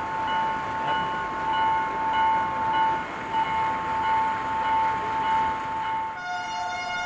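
Level-crossing warning alarm sounding with a steady, high electronic tone and a faint pulsing beep. About six seconds in, it gives way to a train horn holding a long, steady note.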